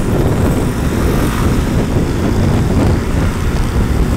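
Steady wind noise on the microphone over motorbike engine and street-traffic noise, heard from a moving scooter.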